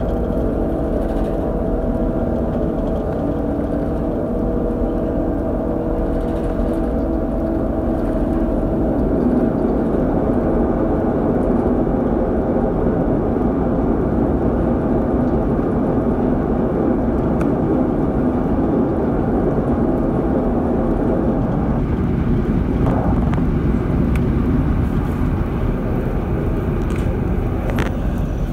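A car ferry's engines drone steadily, heard from aboard as a low, even rumble with a faint steady hum in it. The hum fades about a third of the way in and the rumble shifts a little near the end.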